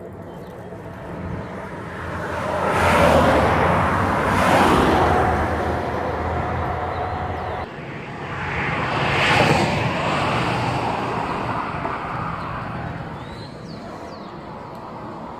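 A car running, with a steady low engine hum under its noise, which swells louder and falls away twice: a few seconds in, and again around nine seconds in.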